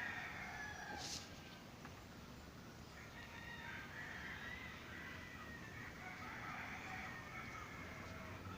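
Roosters crowing, faint, with several drawn-out calls overlapping. A short sharp high sound comes about a second in.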